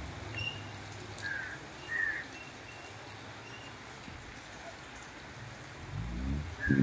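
Heavy rain falling steadily on tree foliage, with a few short bird chirps in the first half and a low hum rising near the end.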